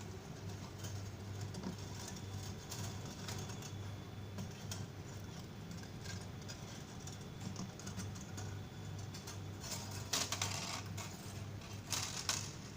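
Irregular light clicks and taps of hands working on small parts, with two louder scraping bursts about ten and twelve seconds in, over a steady low hum.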